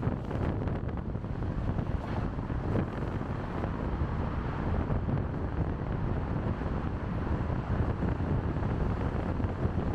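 Car driving along a city road: a steady low rumble of road noise with wind noise on the microphone.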